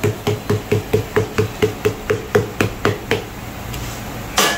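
Wooden dabla knocking against a paratha roti on a hot tawa as buss up shut is made, about four strokes a second, stopping about three seconds in. A short burst of scraping noise comes near the end.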